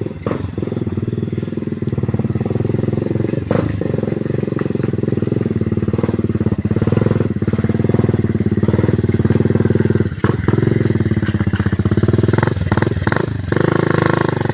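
Motorcycle engine running steadily while being ridden over rough ground, with occasional sharp knocks and clatter, several of them close together near the end.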